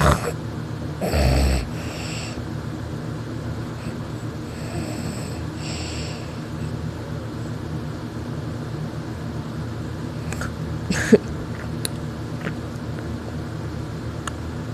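A sleeping person snoring and breathing noisily, with one louder snore about a second in and a sharp click about eleven seconds in.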